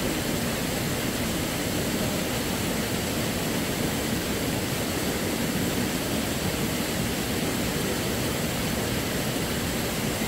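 Steady rush of river water pouring over rocks in shallow rapids.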